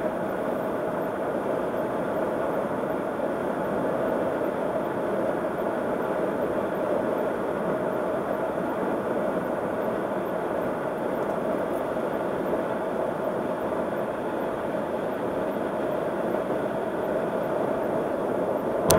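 Steady road and tyre noise of a car cruising at highway speed, heard from inside the cabin.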